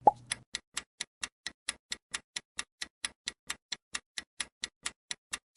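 Clock-ticking countdown sound effect: evenly spaced sharp ticks, about four to five a second, marking the time allowed to answer a quiz question. It opens with a short pop.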